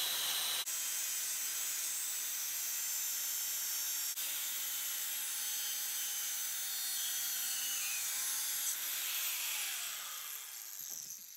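Angle grinder with a thin cut-off wheel cutting through a steel engine valve held in a vise, a steady high-pitched grinding. About nine seconds in it is switched off and the wheel spins down, its pitch falling as it fades.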